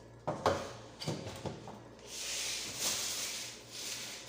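Vegetables and their packaging being handled: a few knocks in the first second and a half, then a long rustle from about two seconds in.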